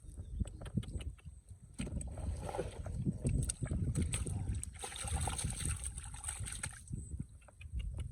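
Shallow water sloshing and splashing as someone wades and works by hand, with scattered knocks and handling noise. A louder stretch of splashing comes about five seconds in and lasts about two seconds.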